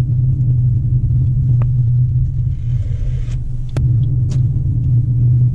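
Steady low rumble of a car driving, heard inside the cabin, with a few small clicks partway through.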